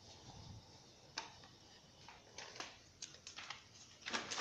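Scattered light clicks and taps from handling utensils and cookware, irregular, with a louder quick cluster near the end.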